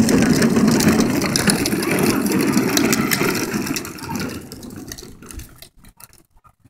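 Hard plastic wheels of a toddler's ride-on push car rolling over asphalt: a steady rattling rumble that fades out about four to five seconds in as the car is pushed away.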